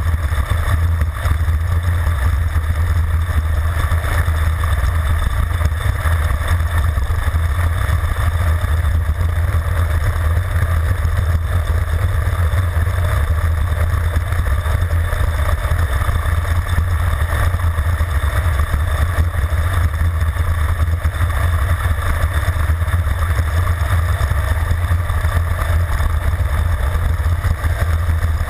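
Steady, loud wind rush and low rumble on a handlebar-mounted camera's microphone as a road bike descends at high speed.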